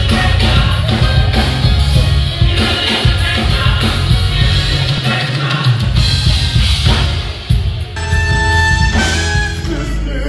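Gospel praise music from a church praise team: singers with a band and drum kit, loud. The music changes abruptly about eight seconds in, to held notes.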